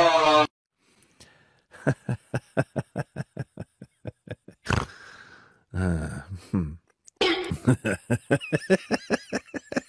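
A kitten's loud meow cuts off just after the start. Then a kitten laps milk in quick, even laps, about four a second. Later a kitten eats messily from a bowl with fast, wet smacking mixed with small wavering cries.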